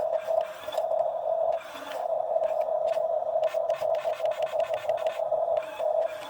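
Excavator at work: a steady engine drone with many short scraping clicks over it.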